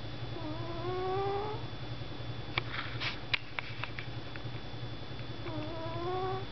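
Sleeping domestic cat snoring: two whistling breaths about five seconds apart, each a tone rising in pitch for about a second. A few sharp clicks come midway between them.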